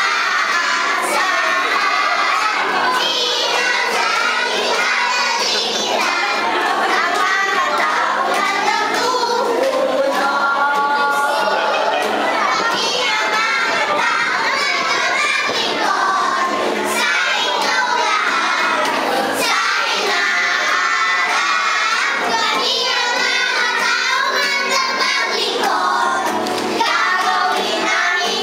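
A group of young children singing a song together in unison.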